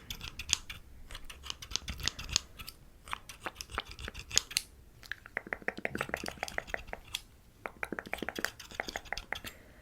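Scissors snipping close to the microphone: scattered crisp snips at first, then from about five seconds in a quick, rapid run of snips.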